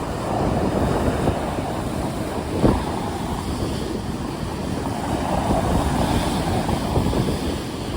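Stormy sea waves surging and washing, with wind rumbling across the microphone, as a continuous heavy noise. There is a brief louder thump about two and a half seconds in.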